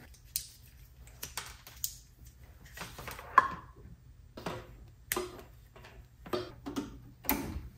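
Handling clicks and small knocks from a plastic Wi-Fi communication dongle and its round screw-on multi-pin cable connector as they are fitted and turned by hand, about ten in all, the sharpest about three and a half seconds in. A low steady hum runs underneath.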